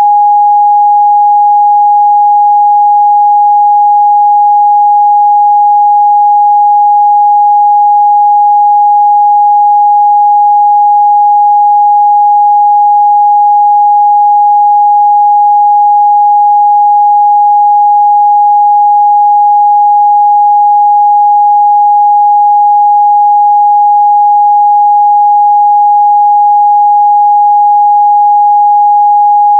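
A steady, loud 826 Hz sine-wave test tone, a single unchanging pitch with no harmonics.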